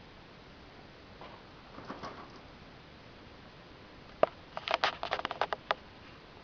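Guinea pig rummaging in its food dish. There is soft rustling about two seconds in, then a quick run of sharp crunching clicks a little after four seconds.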